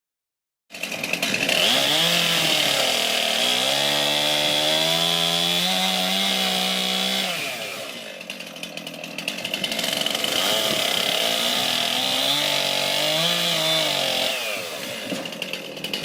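Chainsaw revving up and held at high speed twice, easing back to a lower note in between.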